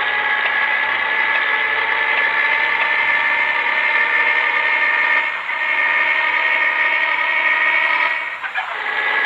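Mitsubishi Fuso Fighter truck's diesel engine running loud through an exhaust with no silencer, a steady, even drone that dips briefly twice near the end.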